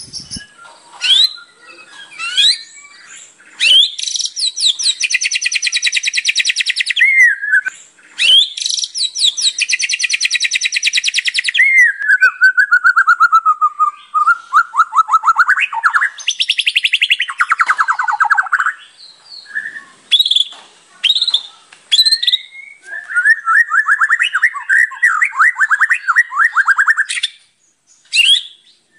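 White-rumped shama (murai batu) singing a long, varied song: two long, fast trills of repeated notes in the first half, a slow falling whistle, then shorter whistled phrases and another fast trill near the end.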